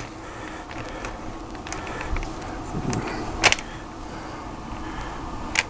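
A few sharp clicks and knocks over a steady background hiss, the loudest about three and a half seconds in: handling at the smoker as the temperature probe is put back into the brisket.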